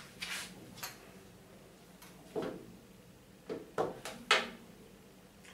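Several short knocks and clatters, the loudest about two and a half seconds in and again just after four seconds.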